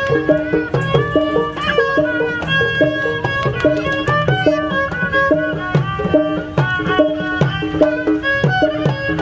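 Traditional Betawi-style music that accompanies ondel-ondel dancing: hand drums keep a steady repeating pattern under a melody instrument playing a repeated figure.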